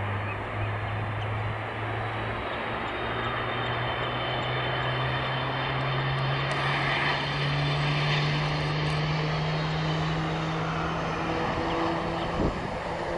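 Airbus A330-200 airliner's jet engines on final approach, a steady drone with a low hum that slowly rises in pitch and a faint fan whine above it. A short thump about twelve seconds in as the main wheels touch down on the runway.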